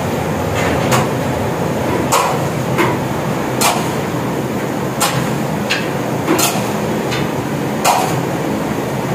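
About ten sharp knocks of a metal utensil against a metal tray, at uneven intervals, over a steady background hum.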